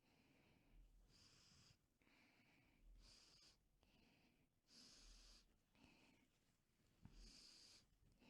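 A person sniffing deeply and repeatedly through the nose, breathing in coarse-ground pepper to try to set off a sneeze. It is faint: four long, sharp inhales about two seconds apart, each followed by a softer breath out.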